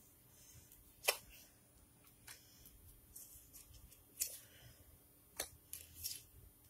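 Tarot cards being handled and shuffled: faint soft sliding rustles broken by about four sharp snaps of the cards, roughly a second apart.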